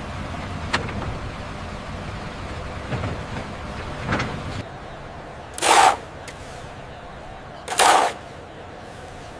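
Heavy machinery running with a steady low rumble and a sharp click about a second in. The rumble drops away about halfway through, and two short, loud rushing bursts of noise follow about two seconds apart.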